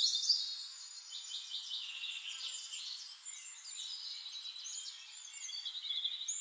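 Several birds singing and calling together in the forest, a busy overlap of chirps, short whistled sweeps and fast trills.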